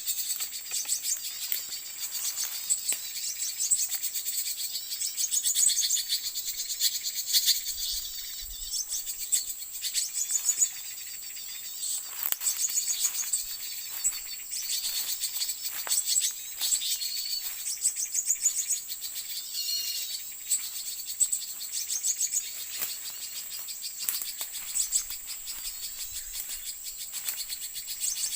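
Many quick, high chirps from small songbirds, likely white-eyes, over a steady high-pitched insect drone.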